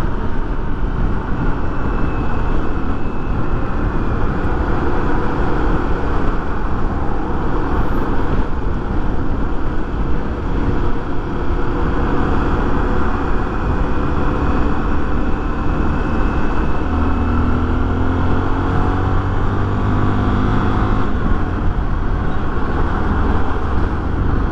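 Honda XRE300's single-cylinder engine running steadily while the motorcycle is ridden at road speed, with a constant rush of wind over the helmet-mounted microphone.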